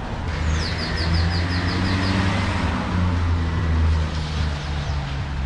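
A motor vehicle's engine running steadily with a low hum. Over it, a bird gives a quick series of about nine short falling chirps in the first two seconds.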